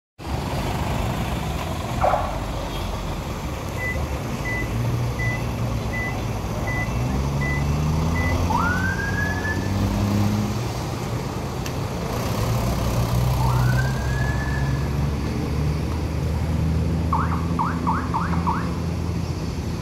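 Heavy truck engines running as a convoy of trucks moves off, with a police siren giving a rising whoop about every four seconds and a quick burst of five short siren chirps near the end. A string of short high beeps sounds in the middle, and a single knock about two seconds in.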